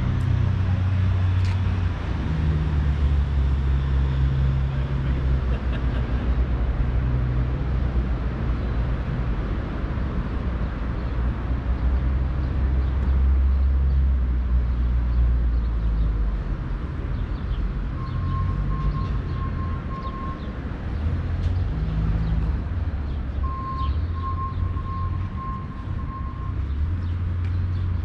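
City street traffic: a steady low rumble of passing car and bus engines and tyres. In the second half a rapid electronic beeping at one pitch starts and stops three times.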